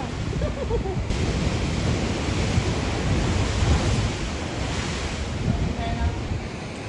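Rough sea surf surging into a narrow rock channel and breaking against the cliffs in a continuous wash of noise, loudest about three to four seconds in. Wind rumbles on the microphone throughout.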